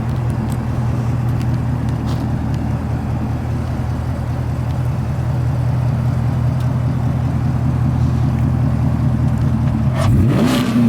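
A V8 car engine idling steadily, then revved once sharply near the end, the pitch rising quickly and starting to fall back.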